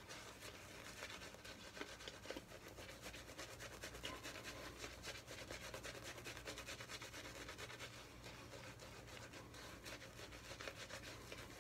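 Shaving brush scrubbing shaving soap lather over a face, the bristles making a faint, continuous rapid brushing as the lather is built up on the skin.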